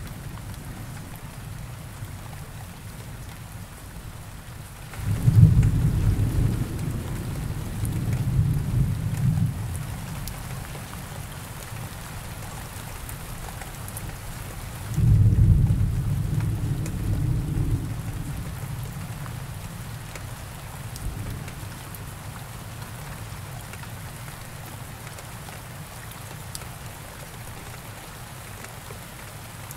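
Steady rain falling, with thunder rumbling low twice: a rumble that swells suddenly about five seconds in and lasts several seconds, then another about fifteen seconds in, trailing off with a faint grumble after it.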